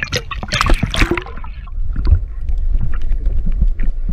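Water splashing around an action camera at the sea's surface; about a second and a half in, the camera goes under and the sound turns muffled and dull, with a low rumble and small clicks from the water against the housing.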